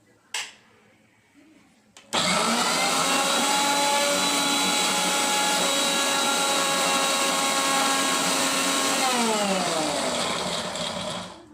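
A Sansui Pro juicer mixer grinder's motor starts up about two seconds in and runs at a steady high-speed whine for about seven seconds, then is switched off and winds down with a falling whine. There is a sharp click just after the start.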